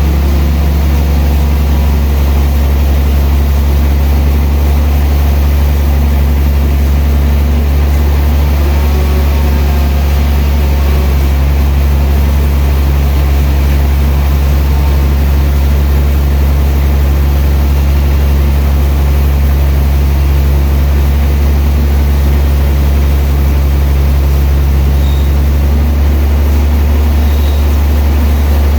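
Sawmill machinery running steadily with a loud, deep, unchanging drone.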